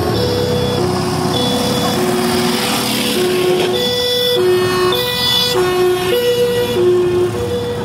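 Two-tone siren of a vintage fire van, a high note and a low note alternating a little over every half second as the van drives past, loudest as it comes close. The van's engine runs underneath.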